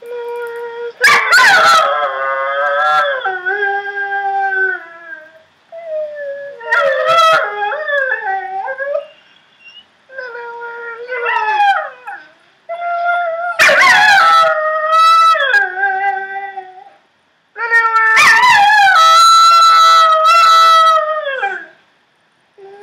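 Dogs howling and whining in a run of about five long, wavering calls that slide up and down in pitch, some with several voices overlapping.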